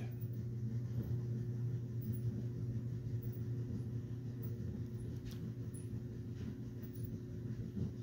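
Quiet room tone: a steady low hum with no speech, broken only by a couple of faint clicks about five and six seconds in.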